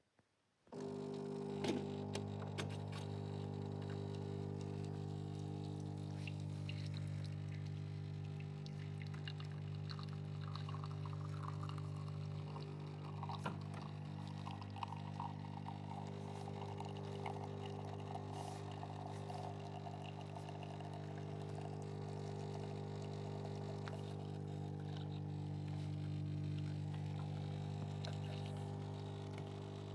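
Nivona 8107 bean-to-cup coffee machine's pump starting about a second in and then running steadily with a hum, with a rattling from inside the machine and liquid pouring. The rattle comes whenever the pump runs; it was absent when the machine was new, and the manufacturer calls it normal.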